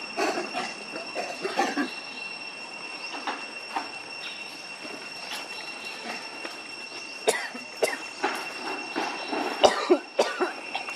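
Steady high-pitched insect drone, typical of cicadas, with short harsh cough-like grunts from the long-tailed macaques in the first two seconds. A run of sharp clicks and knocks follows from about seven seconds in.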